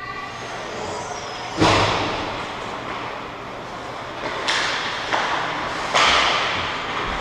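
Ice hockey play: four sharp knocks of puck and sticks against the boards and ice, the first about one and a half seconds in and the loudest, each ringing on in the rink's echo.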